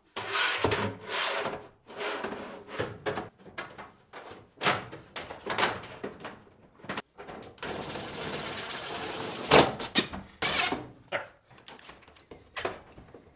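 A 6-inch round sheet-metal duct section being handled and pushed together at a joint overhead: irregular scrapes, rattles and knocks of thin metal, with a longer rasp about eight seconds in and the loudest knocks soon after.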